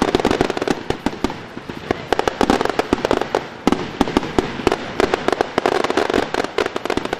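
Aerial fireworks shells bursting, with rapid, near-continuous crackling and popping: many sharp reports a second, none standing out as one big bang.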